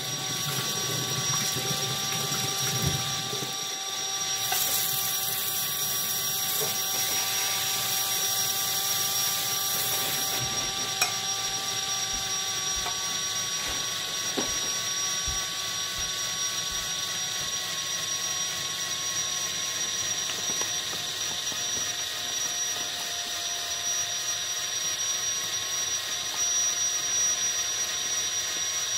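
Small motor of a kinetic painting machine running steadily, a constant whir with a thin high whine held at one pitch. A high hiss joins in for about six seconds starting a few seconds in.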